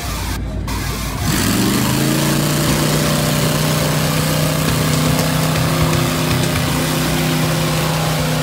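Pickup truck engine revving up about a second in, then held at steady high revs under load as it pulls against another truck in a tug of war.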